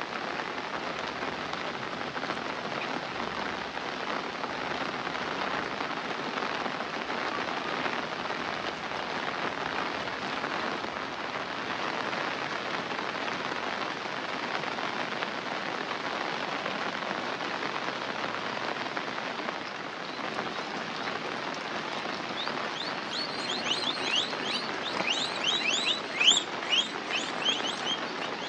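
Steady rain falling, a dense even hiss. About five seconds before the end, quick high chirping sets in over it.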